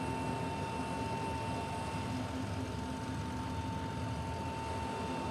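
Steady machinery hum with a constant high-pitched whine.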